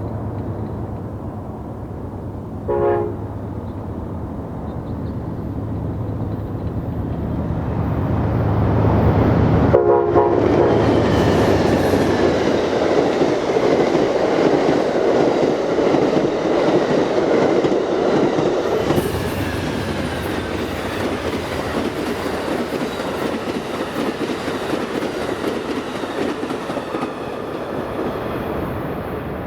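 Amtrak Southwest Chief passenger train passing: diesel locomotive rumble builds as it approaches, with two short horn blasts, about three seconds in and again about ten seconds in. Then the steady rush and clatter of the cars' wheels on the rails, slowly easing off as the train goes by.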